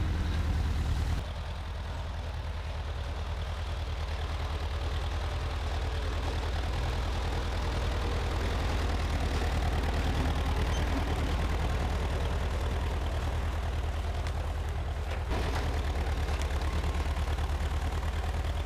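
Ford 8N tractor's four-cylinder engine running at low speed, a steady low chugging. It drops in level about a second in and comes back up near the end.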